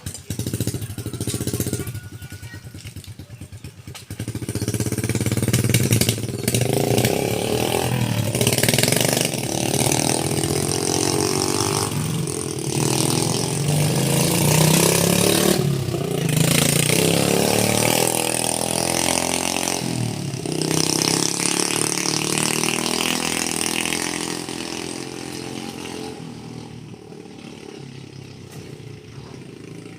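Vehicle engine revving hard and labouring, its pitch rising and falling again and again, then dying away over the last few seconds.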